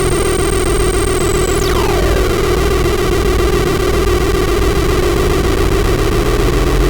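Electronic noise music from a live sound performance: a dense, steady wall of noise over a strong low hum, with a thin high tone that, about a second and a half in, sweeps steeply down in pitch.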